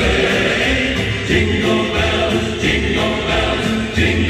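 Choir singing with a steady low bass accompaniment, played back from a vinyl record on a Technics SL-1200MK3D turntable with an Audio-Technica AT120E cartridge.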